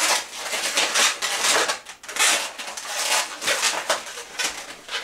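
Inflated latex modelling balloons squeaking and rubbing against each other as they are twisted and handled, in a run of irregular scratchy squeaks.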